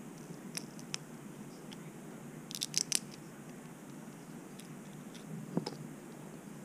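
Boiled crawfish shells cracked and peeled by hand: a few faint clicks, then a quick cluster of cracks about two and a half seconds in and another crack a little before the end.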